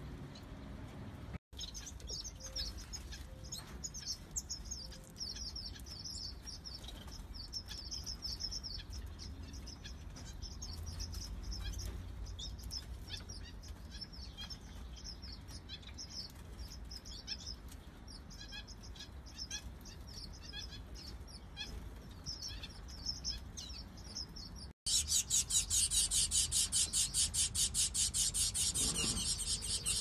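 Small aviary finches, Gouldian finches among them, giving many short, high chirps and call notes. In the last five seconds, after a cut, a louder rapid, even, high-pitched pulsing chatter takes over.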